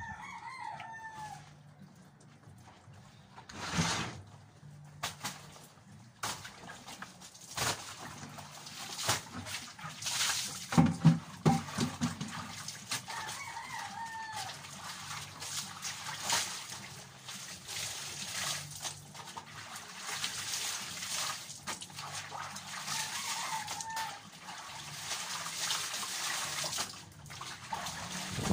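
Laundry being washed by hand in a plastic basin: water sloshing and splashing, with scattered knocks and clatter that are loudest about ten to twelve seconds in. A few short bird calls, about three times, in the background.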